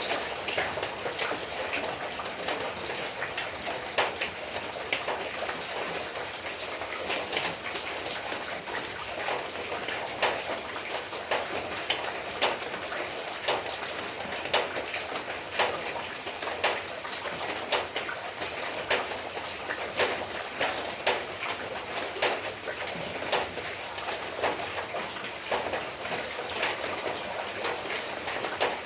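Steady rain falling, an even hiss with loud individual drops striking close by at irregular intervals, about one or two sharp ticks a second.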